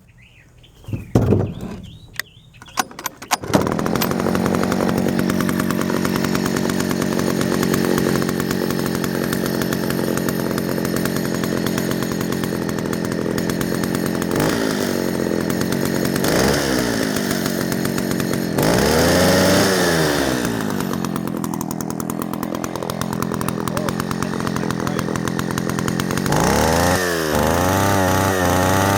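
Echo 60S Super (CS60S) chainsaw being pull-started: a few quick pulls, then the engine catches about three and a half seconds in and runs steadily. It is revved up and back down a few times, with a run of quick throttle blips near the end.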